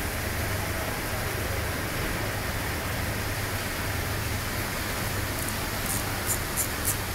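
Steady hiss of a large hotel atrium's ambient noise with a low hum underneath, and a few short clicks near the end.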